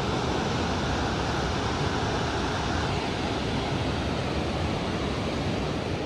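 Steady rushing roar of Burney Falls, the waterfall heard from the overlook.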